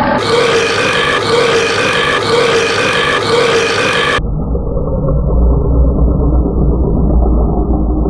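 A man belching loudly in one long, drawn-out burp, its pitch swelling upward about once a second; about halfway through it turns abruptly into a lower, duller steady rumble.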